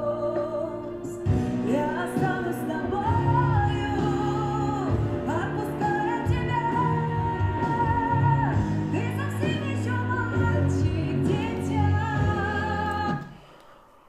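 A woman singing in Russian, with vibrato on held notes, over a backing track. A fuller band with bass and drums comes in about a second in, and the music cuts off abruptly near the end.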